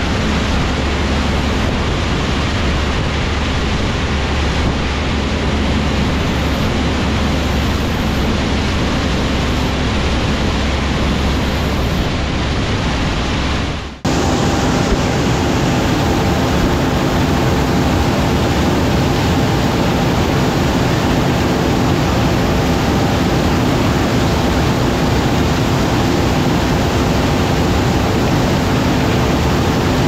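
A combine harvester and a grain-cart tractor running steadily in a corn field while the combine's unloading auger fills the cart, heard as a constant loud machinery noise. About halfway through the sound breaks off for a moment and comes back as a steadier engine drone with a few held tones.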